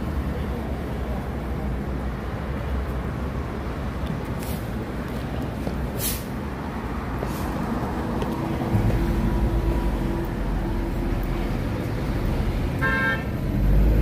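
Edison Motors electric city bus pulling away and passing close by: a low rumble of tyres and drivetrain that grows louder about nine seconds in, over traffic noise. A short horn toot sounds about a second before the end.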